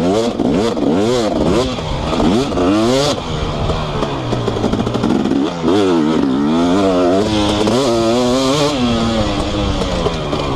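2018 KTM 250SX single-cylinder two-stroke engine with an FMF Powercore 2 silencer, ridden hard on a motocross track. The revs rise and drop over and over in quick swings, about two a second, settling to a steadier pitch near the end.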